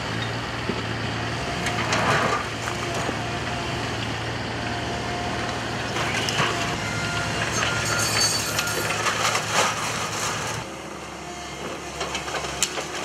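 Komatsu hydraulic excavator with a demolition grab running while it tears down a brick wall. Masonry and roof timbers crash and clatter into the rubble, about two seconds in and again several times in the second half. The engine's steady hum drops away near the end.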